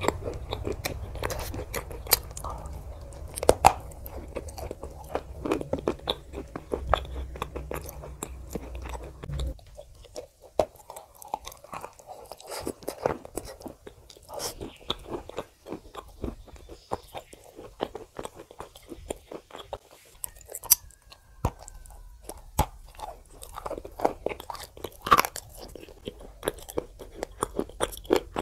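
Close-up crunching and chewing of a dry block of edible clay dipped in wet clay paste: sharp crunches as pieces are bitten off, with wet chewing between them.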